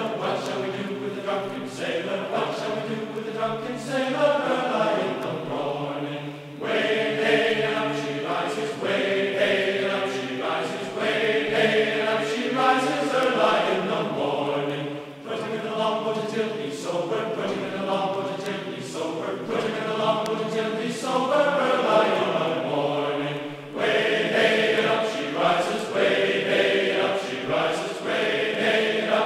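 Background music: a choir-like vocal track singing held chords that change every second or two.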